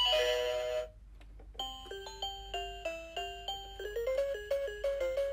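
Electronic tune from a toy ATM piggy bank: a simple melody of plain beeping notes stepping up and down, starting about a second and a half in after a short tone and a brief pause.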